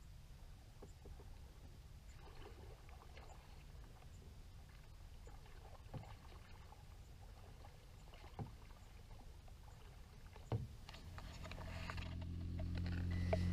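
Faint low outdoor rumble with a few light clicks, then, from about eleven seconds in, a bulldozer's diesel engine comes in as a low hum that grows steadily louder.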